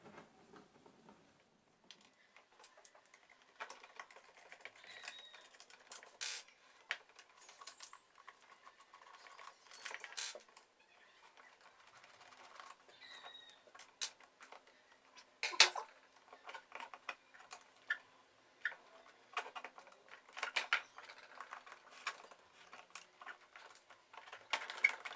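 Irregular light clicks, taps and knocks of hard plastic parts being handled as a plastic electric fan is taken apart, with one sharper knock about fifteen seconds in.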